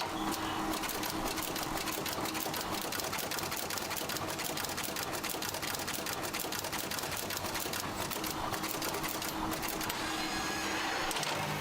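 A small machine running with a fast, steady clatter of rapid clicks over a low steady hum.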